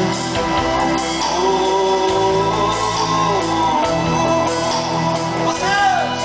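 A live rock band playing, with electric guitars, bass and drums, and a singer holding long sung notes over them. Near the end the voice swoops in pitch.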